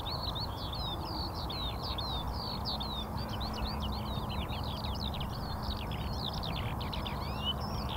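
Many small birds chirping at once in a dense, continuous chorus of quick overlapping chirps, over a steady background noise.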